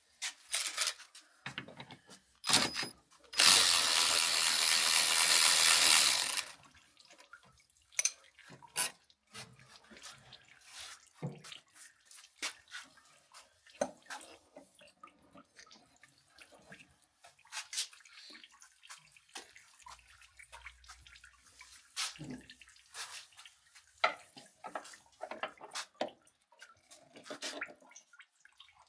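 A power tool runs in one burst of about three seconds a few seconds in. The rest is scattered light clicks, clinks and knocks of tools and metal parts being handled while the truck's front end is torn down.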